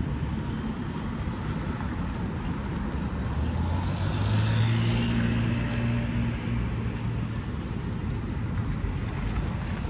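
Street traffic with a steady low rumble; a motor vehicle passes close about halfway through, its engine hum swelling and then fading.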